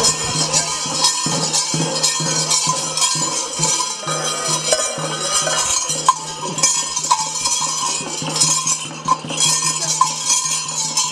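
Temple festival percussion: drums beaten in a fast, continuous rhythm with small metal hand cymbals clanging sharply over them, above a steady low tone.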